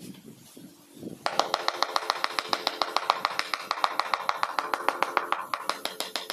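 Rapid, even tapping of a mallet on a large porcelain floor tile, about ten taps a second, starting about a second in: the tile is being bedded down level into its mortar.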